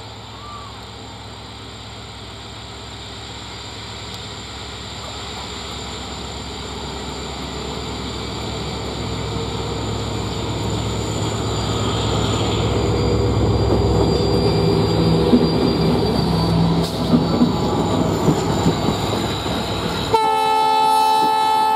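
WDP4-class diesel locomotive hauling an express train on approach, its engine drone growing steadily louder as it nears, then wheels clicking over rail joints as it passes. About 20 seconds in, a train horn sounds a steady chord of several notes.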